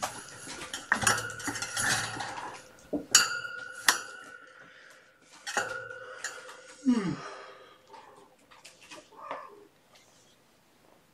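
Metal clattering and ringing, as of a metal dish being knocked about: a run of sharp knocks that ring on, loudest about three and four seconds in and again near five and a half seconds. A short falling tone follows near seven seconds, then a few quieter scuffles.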